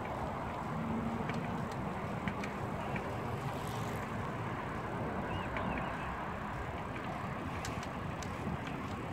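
Bicycle riding along a paved trail: steady rushing wind on the microphone and tyre rumble, with a few faint clicks and rattles.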